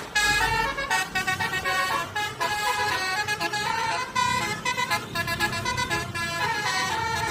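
Basuri musical air horn (telolet horn) playing a tune: a run of short horn notes stepping quickly from pitch to pitch, with a low rumble underneath in the second half.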